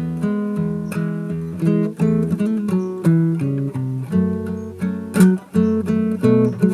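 Acoustic guitar playing a hymn melody, one plucked note after another, over bass notes.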